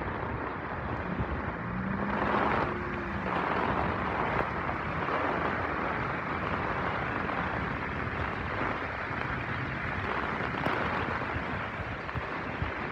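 Steady rain with cars driving past on a flooded road, their tyres swishing through standing water. A short low tone about two seconds in.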